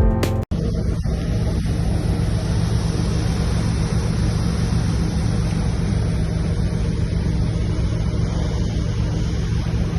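Music cuts off about half a second in, giving way to a ship's steady low engine drone under an even rushing noise of wind and sea.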